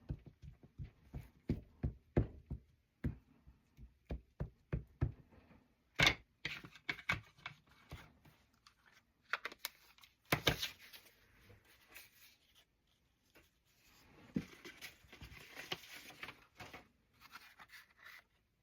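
A quick run of light taps and clicks on a craft table, then paper and card being handled and rustled in several short spells.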